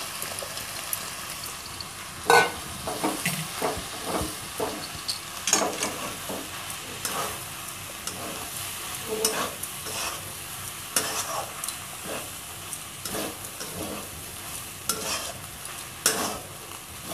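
Metal spatula scraping and tossing puffed rice with fried vegetables in a metal wok, in irregular scrapes and clinks, the loudest about two seconds in, over a steady faint sizzle of the oil.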